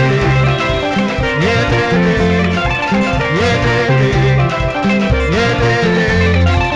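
Live Tanzanian dansi band music: an instrumental passage with guitars over a repeating bass line and a steady beat, without singing.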